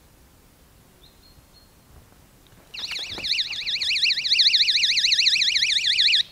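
Cheap battery-powered magnetic-contact alarm sounding a loud, rapidly warbling electronic siren, set off when a fishing-line tripwire pulls its sensor and sounder apart: the camp perimeter has been crossed. It starts about two and a half seconds in and cuts off suddenly after about three and a half seconds.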